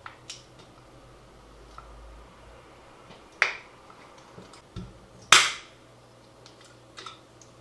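Thin metal blade prying the front grille off a small round Ebai FZF-19YX7 Bluetooth speaker: a handful of sharp plastic clicks and snaps, the loudest about three and a half and five seconds in, as the grille comes free.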